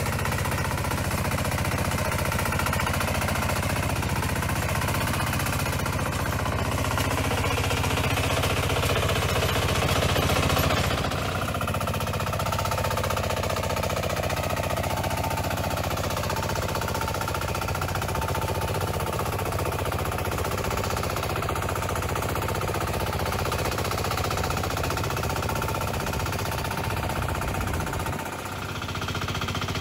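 Small single-cylinder engine of a two-wheel hand tractor running steadily under load as it plows flooded paddy mud, with a rapid knocking beat.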